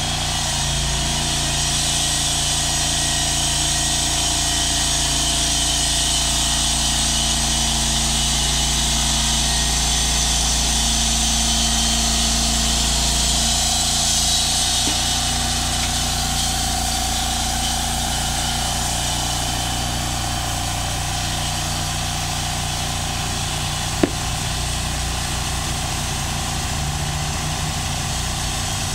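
Portable band sawmill running: its engine holds a steady note while the band blade saws along a squared timber beam, the high hiss of the cut easing after about 13 seconds as the saw head travels back. One sharp knock near the end.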